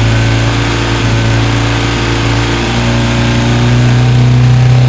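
BMW R1250GS boxer-twin engine running stationary in neutral with the throttle held open at around three to four thousand rpm, revs creeping up and the note getting a little louder near the end. The exhaust butterfly valve is closed at these revs, damping the exhaust.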